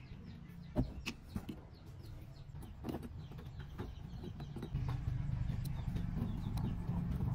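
Small metallic clicks of brass socket contact strips and a screwdriver being handled, the sharpest about a second in. From about five seconds in, a steady low engine drone joins and grows louder.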